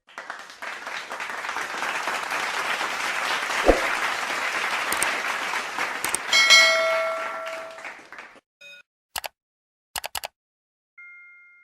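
Crowd applause, a clapping sound effect, lasting about eight seconds, with a bell ding ringing out toward its end. After the applause come a few sharp clicks and then a brief electronic tone.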